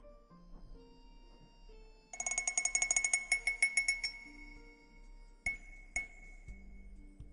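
A high chime tinkling: struck rapidly over and over at one bright pitch for about two seconds, then twice more singly. Under it, soft background music of slow low notes.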